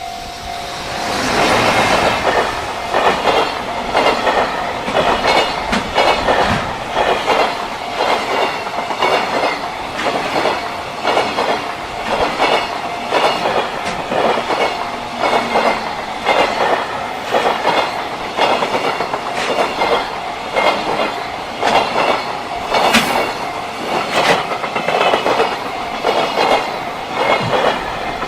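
A JR Freight train passing at speed, its wagon wheels clattering over the rail joints in a steady rhythm of strikes about once a second.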